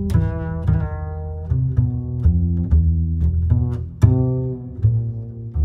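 Background music: a low bass line of short plucked notes, several notes a second.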